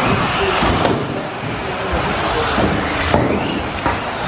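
Electric 1/10 RC buggies racing on an indoor track: a high motor whine that rises and falls with the throttle over tyre noise, echoing in a sports hall, with a sharp knock about three seconds in as a car strikes something.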